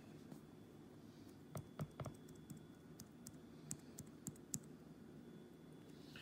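Faint, irregular clicks and taps from a plastic food jar being handled over a plastic tote, about ten in the middle few seconds, over a low room hum.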